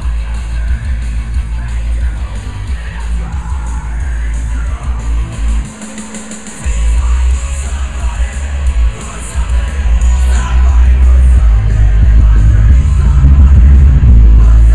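Loud music with singing played through a home stereo's speakers and subwoofers, with very heavy bass. The bass cuts out for about a second around six seconds in, then comes back heavier.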